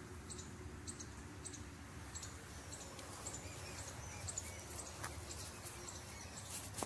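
Faint rural field ambience: short high chirps repeating about twice a second, with a few lower chirps about three seconds in, over a low rumble.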